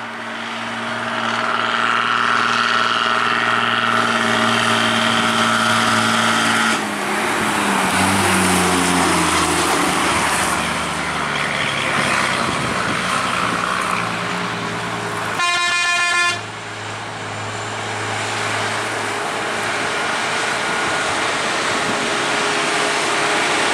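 Heavy diesel bus and truck engines labouring up a steep mountain road, with steady droning and a rise in engine pitch about a third of the way in. A short vehicle horn blast sounds a little past halfway.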